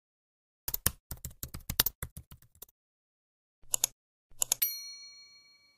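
Subscribe-animation sound effect: about two seconds of rapid computer-keyboard typing, then two quick mouse clicks, then a bell chime that rings out and fades near the end.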